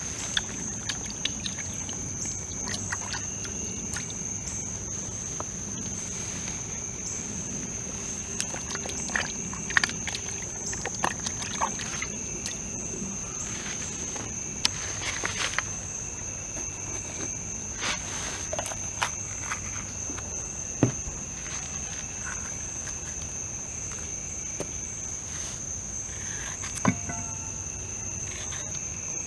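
Night insects trilling in one steady, high, unbroken chorus. Over it come scattered small splashes, knocks and clicks of a bell pepper being rinsed by hand in a collapsible bucket of water, mostly in the first two-thirds.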